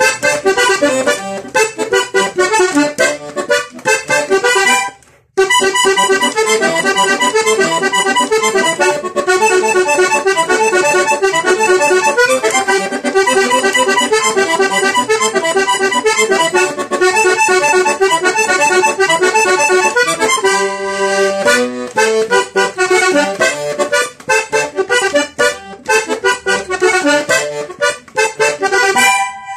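Diatonic button accordion tuned re-sol-do playing a vallenato melody, with a brief stop about five seconds in.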